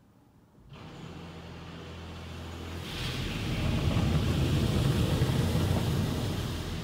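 Automatic car wash heard from inside the car: a machine motor starts humming about a second in, then from about three seconds water spray and cloth wash strips sweeping over the windshield build into a loud, steady rushing.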